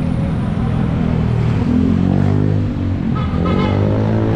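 Street traffic: motor vehicle engines running close by, with one engine's pitch rising and falling about two to three seconds in. A brief higher-pitched sound, like a short horn, comes about three seconds in.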